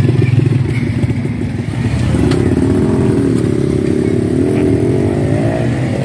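Small motorcycle engines running close by, with one revving and pulling away about two seconds in, its pitch rising and wavering.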